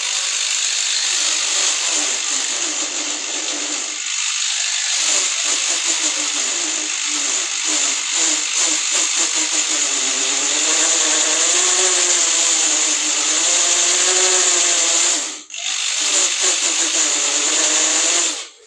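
Electric drill running, its motor pitch wavering as it works. It stops briefly about fifteen seconds in, runs again, and cuts off near the end.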